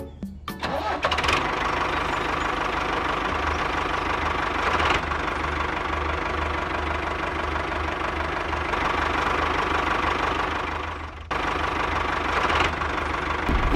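Tractor engine running steadily, with a brief dip in level near the end.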